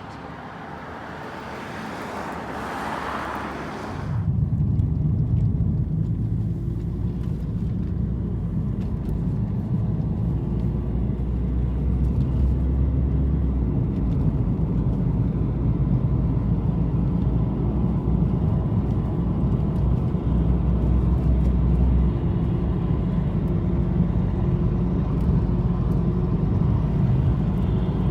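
A car driving: a steady low road rumble that starts suddenly about four seconds in, after a few seconds of hiss.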